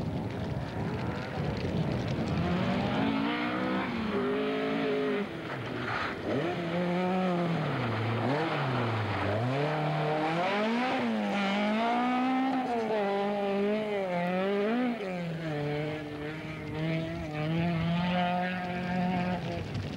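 Opel Manta rally car's engine revving hard, its pitch repeatedly climbing and dropping as it accelerates and lifts off, with two deep drops about eight and nine seconds in.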